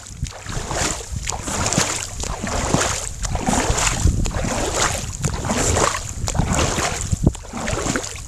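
Wind buffeting the microphone over water noise from an inflatable boat moving across open water, rising and falling unevenly.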